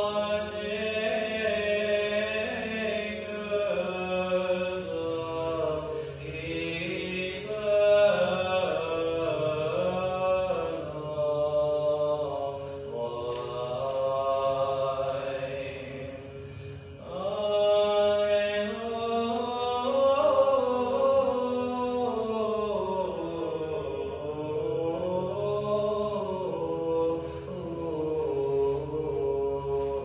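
Sung chant: voices hold long notes in a slow melody that glides gently in pitch, with a brief break about sixteen seconds in before the next phrase.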